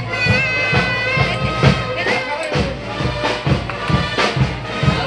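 Procession music: a reedy wind instrument playing a held melody over a steady drum beat, with crowd voices underneath.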